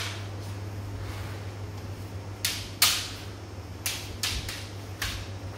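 Bamboo shinai knocking together in kendo sparring: about six sharp, dry clacks in the second half, over a steady low electrical hum.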